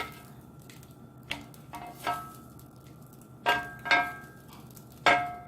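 Kitchen utensils clinking against a plate and grill as grilled calamari is moved off the grill: about six sharp clinks, each with a short ring.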